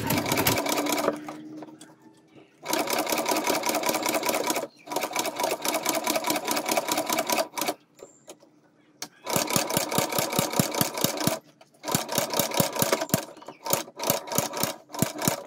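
Long-arm shoe-repair sewing machine stitching through a bag's handle strap: a rapid run of needle clicks, several stitches a second, in bursts of a few seconds with short stops between. The handle's stitching is being sewn over a second time to double it.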